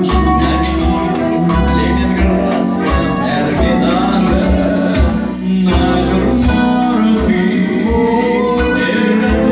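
Live band playing a song through a PA: a male singer over bass guitar, electric guitar, keyboard and drums, with a short break in the music about halfway.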